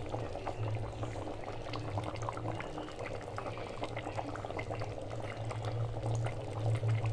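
Thick chicken curry boiling in an aluminium cooker pot: a dense run of small bubbling pops and crackles over a steady low hum.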